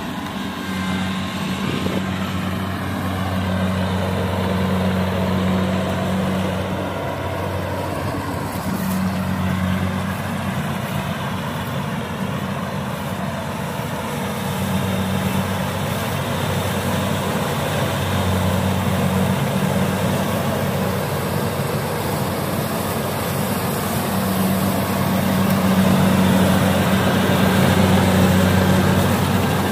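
Kubota DC70 rice combine harvester's diesel engine running steadily under load while the machine cuts rice, with a continuous low hum. It grows louder near the end as the harvester comes close.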